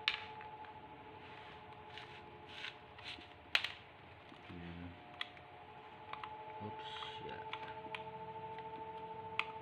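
Light clicks and knocks of plastic and metal parts being handled as an electric fan motor is taken apart by hand. The sharpest clicks come right at the start and about three and a half seconds in, over a faint steady hum.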